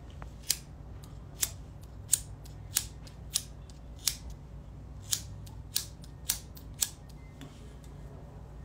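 Disposable lighter's flint wheel struck again and again: about ten sharp clicks, one every half second to second, then it stops. A steady low hum runs underneath.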